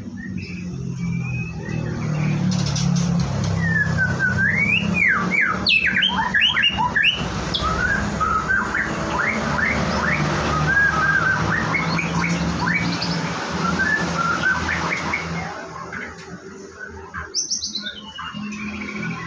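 White-rumped shama (murai batu) singing a rapid run of varied chirps and whistles, with a falling whistle near the end. A steady low hum runs underneath.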